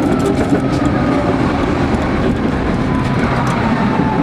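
Electric tram running along its track, heard from inside the car: steady rumble and rail noise with a motor whine falling slowly in pitch as the tram slows.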